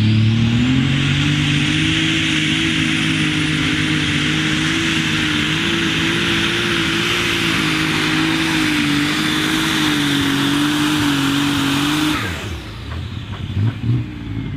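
Super Stock pulling tractor's turbocharged diesel engine at full throttle during a pull, a loud, steady engine note with a high turbo whine. It cuts off suddenly about twelve seconds in.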